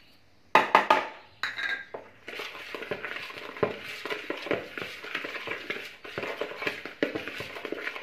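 Canary egg food (pâtée) being mixed in a bowl: a few knocks as more dry pâtée goes in, then steady crunching and scraping as the crumbly mix is stirred.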